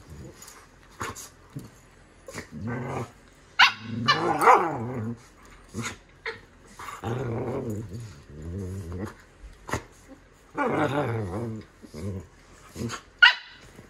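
A standard poodle and a Moyen poodle puppy play-fighting, growling in repeated short bouts, with a couple of sharp yaps.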